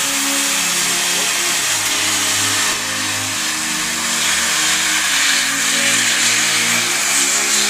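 Steam locomotive 241-A-65 blowing steam from its cylinder drain cocks in a loud, steady hiss, with low droning tones underneath that change pitch now and then.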